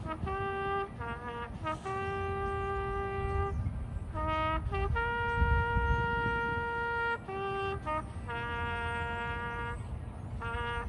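A solo trumpet plays a slow melody of separate held notes with short breaks between them, holding its longest note near the middle.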